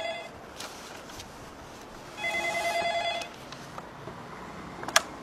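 Telephone ringing: a ring of about a second at the start and another about two seconds in, as a dropped call is connected again. A sharp click follows near the end.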